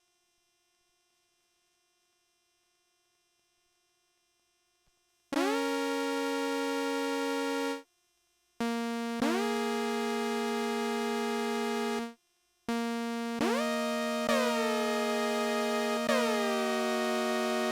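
Behringer Phara-O Mini analogue synthesizer, dry with no effects: about five seconds of near silence with a faint hum, then sustained chords. Each note slides briefly into pitch as it starts. Near the end, notes are retriggered about once a second, with falling swoops in the upper tones.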